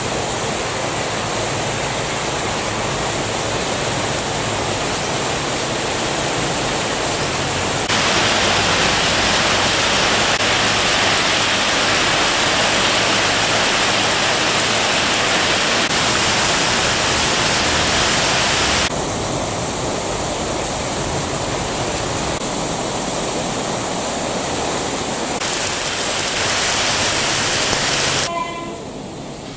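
Heavy rain pouring, a dense steady hiss. It gets louder about eight seconds in, eases about halfway through and drops off sharply near the end.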